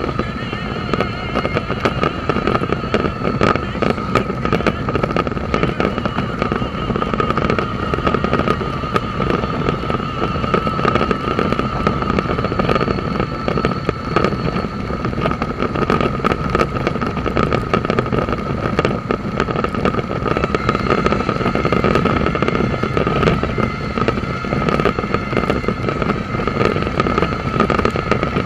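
Suzuki V-Strom motorcycle on the move: steady engine and wind noise, with a constant whine and a dense crackle of sharp ticks running through it, typical of rain striking the camera.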